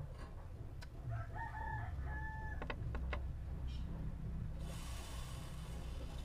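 A rooster crows in the background, one held call about a second in, followed by two sharp metallic clicks. From about two-thirds of the way in, a hot soldering iron pressed onto the brass joint sizzles steadily for under two seconds, then stops.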